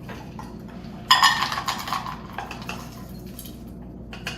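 Kitchen utensils and dishware clattering and clinking as they are handled. A dense burst of clatter starts about a second in, followed by a few scattered clicks.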